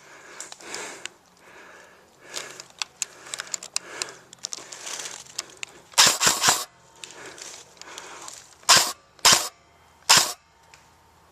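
Airsoft guns firing close by, in sharp cracks. There are scattered faint ticks early on, a quick cluster of about three shots around six seconds in, and then three single shots about half a second to a second apart near the end.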